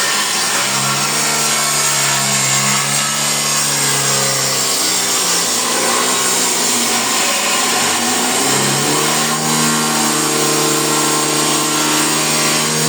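Electric power saw running and cutting wood, a steady motor hum with cutting noise over it. The hum fades in the middle and comes back strongly about eight and a half seconds in.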